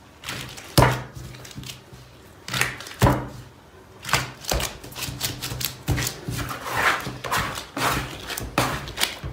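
Yeast dough being kneaded by gloved hands on a wooden tabletop: irregular thumps and squishes as it is pushed, folded and pressed down, late in kneading as the dough comes together into a ball.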